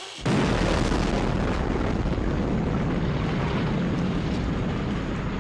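A large explosion goes off suddenly just after the start, followed by a long, slowly fading rumble as debris is thrown: a nitroglycerin charge blowing apart a tree.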